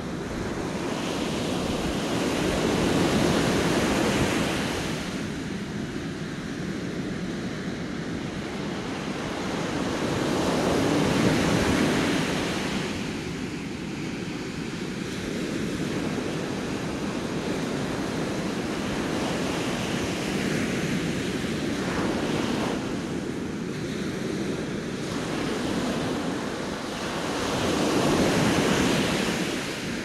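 Sea waves breaking and washing up a sandy beach, a steady rush of surf that swells and fades as each wave comes in, with the biggest surges about three seconds in, around eleven seconds and near the end.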